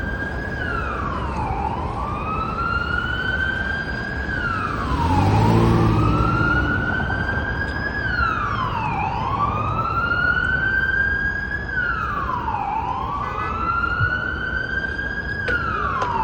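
Police car siren wailing in a slow repeating cycle: a quick drop in pitch, then a long rise, about every four seconds, over steady traffic noise. A vehicle engine swells louder about five seconds in.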